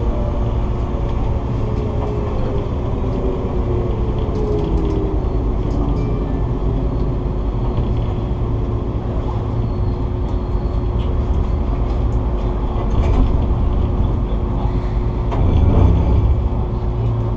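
Enoshima Electric Railway train running, heard from the driver's cab: a steady rumble of wheels on rail and a constant motor hum. In the first few seconds a whine falls in pitch, with scattered light clicks and creaks throughout, and a louder low rumble about sixteen seconds in.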